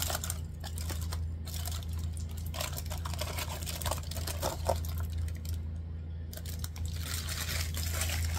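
Aluminium foil being unwrapped from corn on the cob and crumpled, an irregular run of crackling, rustling crinkles with a few sharper clicks, over a steady low hum.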